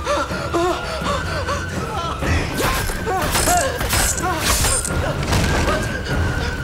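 Horror-film soundtrack: a man's pained cries and gasps over a sustained high tone in the score. A run of sharp strikes from a nail gun firing comes between about two and a half and five seconds in.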